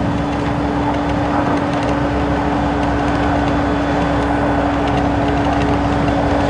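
Steady road noise heard inside a moving car: tyre and engine noise with a constant low hum.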